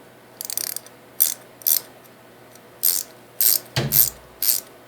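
Ratcheting ring end of a 10 mm fine-toothed combination wrench being swung back and forth by hand: about seven short bursts of rapid fine clicking with pauses between, and a dull knock of handling about four seconds in. The ratchet moves softly and smoothly.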